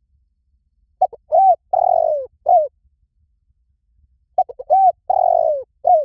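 Spotted dove cooing: two matching phrases, each made of a few short coos, one longer falling croo and a short closing coo. The first phrase starts about a second in and the second just before the middle.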